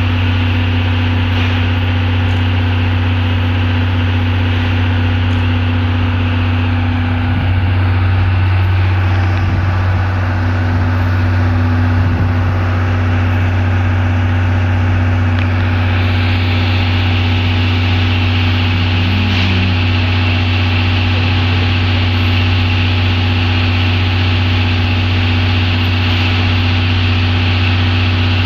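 Steady low hum of an idling diesel engine at a railway station. From about halfway through, steam from the C11 steam locomotive adds a louder hiss.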